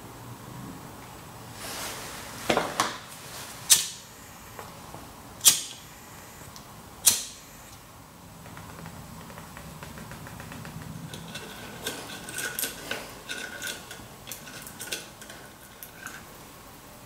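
Disposable flint lighter struck several times: about five sharp clicks over roughly five seconds, followed by a soft steady hiss. Later, small light clicks and taps of a glue bottle and its brush cap being handled.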